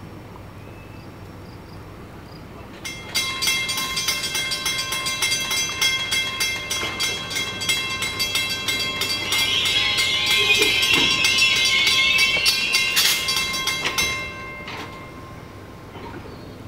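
Train bell ringing rapidly and steadily as an NJ Transit ALP-46 electric locomotive and Comet coaches move slowly past. The bell starts sharply about three seconds in and stops about fourteen seconds in. The train's running noise swells under it, loudest shortly before the bell stops.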